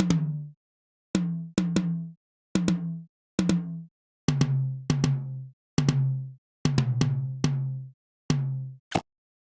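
Repeated drum-like hits, about a dozen at an uneven pace. Each has a sharp double attack and a short low pitched ring that cuts off abruptly, and the pitch drops lower about four seconds in.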